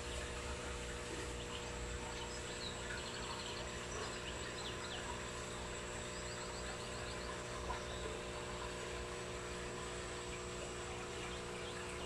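Steady electrical hum over a low rumble and faint hiss, with a few faint, short high chirps in the middle.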